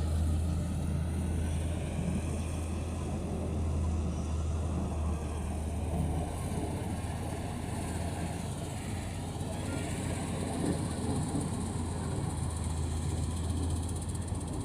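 Combine harvester running steadily during wheat harvesting, a continuous low engine drone that holds an even level throughout.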